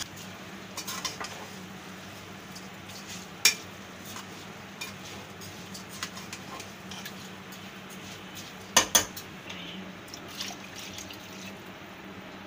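Metal spoon scraping and clinking against a metal cooking pot as rice and lentils are stirred, with a few sharp knocks: the loudest about three and a half seconds in and a quick pair near nine seconds.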